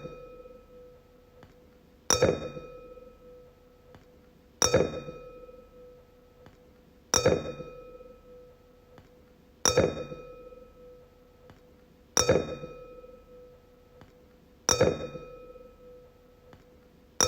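Wine glass struck again and again, about every two and a half seconds, each strike ringing out in a clear tone that fades over a second or two.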